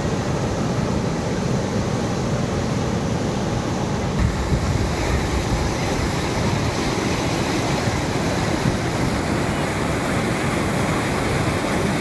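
Steady roar of rushing lake water swollen by heavy rain.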